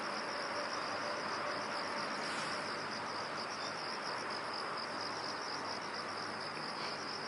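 Crickets trilling steadily in a high, finely pulsing chorus over a constant hiss of night-time nature ambience.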